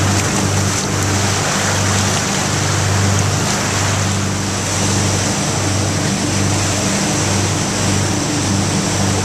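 Fishing boat running at speed: a steady low engine drone under the rush of water breaking along the hull.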